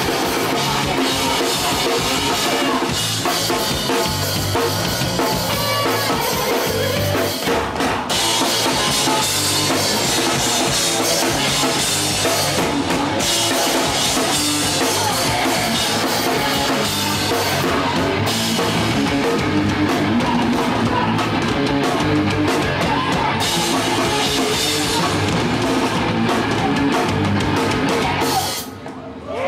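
Live hardcore punk band playing loud: pounding drum kit with heavy bass drum, distorted guitars and bass. The song cuts off near the end.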